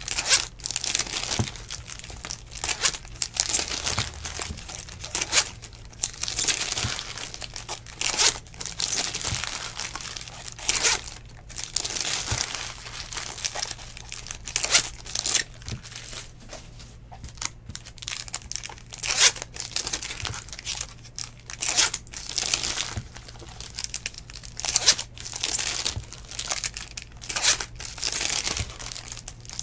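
Foil wrappers of 2019 Bowman baseball card packs crinkling and tearing as packs are ripped open and the cards handled, in irregular bursts.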